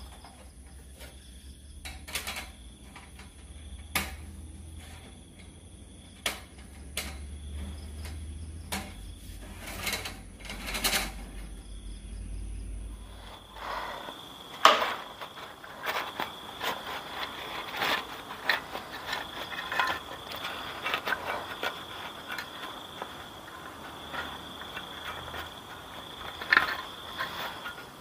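Camping gear being handled: scattered clicks and knocks, then after about half the time near-continuous rustling of a nylon bag and clatter of small items being taken out beside a metal folding table, with a couple of sharper knocks.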